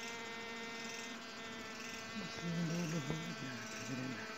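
A swarm of honey bees buzzing steadily around their nest as the comb is pulled out, a drone of many even tones, with a louder buzz wavering in pitch from about halfway.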